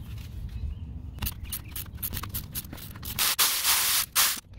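A hand ratchet clicking as it works a bell-housing bolt loose, then about three seconds in a pneumatic air ratchet runs with a loud hiss of exhaust air, stopping briefly once before starting again.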